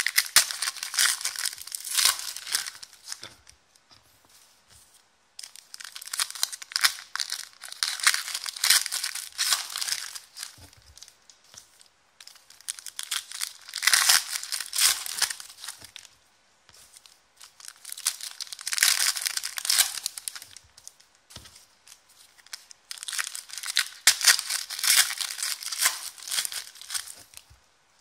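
Foil wrappers of Select basketball card packs being torn open and crinkled by hand, one pack after another. There are five bouts of crackling and tearing, each lasting a few seconds, with short quiet gaps between them.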